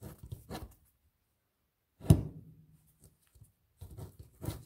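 Handling noise of a hand-held stone being turned and rubbed against the fingers and counter, with scattered light scrapes and clicks and one sharper knock about two seconds in.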